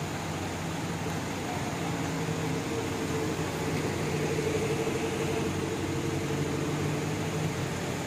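Diesel engine of an express coach running as it drives slowly across a bus terminal: a steady hum that grows a little louder midway.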